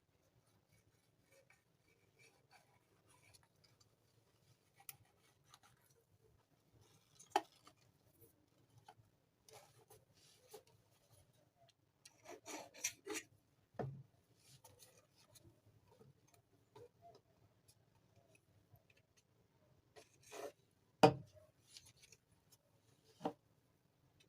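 Quiet handling noises: scattered rubbing, scraping and clicking, with a few sharper knocks, the loudest about 21 seconds in.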